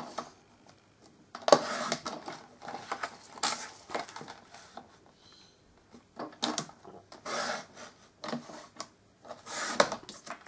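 A sliding paper trimmer's cutter drawn along its rail through white cardstock in several short scraping strokes, mixed with the rustle and slide of card being moved across the trimmer base.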